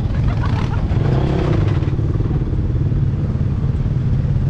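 Ural six-wheel-drive truck's engine running steadily under way, a loud low drone heard from the cargo bed. About a second in, a smaller engine briefly rises and falls in pitch over it.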